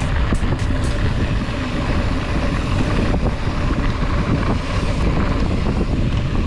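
Wind rushing over an action camera's microphone during a fast mountain-bike descent, mixed with the rumble of the tyres rolling over a dirt track; a few sharp clicks in the first second.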